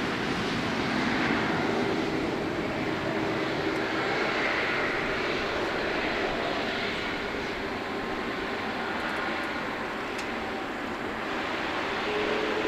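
Boeing 777 freighter's twin GE90 turbofans running at low thrust as the aircraft taxis and turns onto the runway: a steady jet rush with a faint humming tone, which grows stronger and rises slightly near the end.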